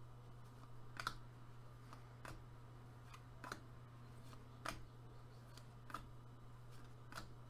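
Faint soft clicks of hockey trading cards being moved off a stack one at a time, six in all, about one every second and a quarter, over a steady low electrical hum.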